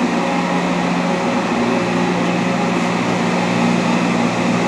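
Large Dainichi Model H engine lathe running with a steady, even hum.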